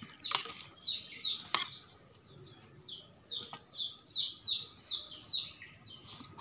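A small bird chirping over and over in short, downward-sliding notes, about three a second, most steadily in the second half. Over it, a few sharp clicks in the first half from hands kneading stiff dough in a steel bowl.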